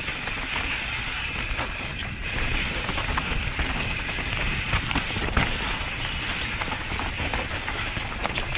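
Santa Cruz Nomad 4 mountain bike descending a dirt forest trail, heard from the bike: a steady rush of tyres over dirt and leaves, with frequent rattles and clicks from the bike as it rolls over roots and bumps, and one sharper knock a little past halfway.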